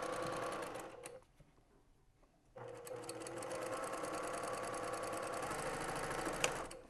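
Sewing machine stitching a seam through pieced cotton quilt strips with a steady run of rapid needle strokes. It stops about a second in, starts again after about a second and a half, and runs until just before the end.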